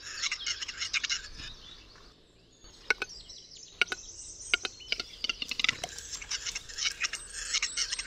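Male capercaillie's display song: a dry, scratchy grinding, then a run of separate sharp clicks that come faster and faster, and then the scratchy grinding again.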